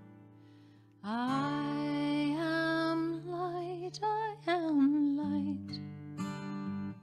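A woman singing a slow, sliding melody with vibrato over strummed acoustic guitar chords. The voice comes in about a second in, and a new strum sounds near the end.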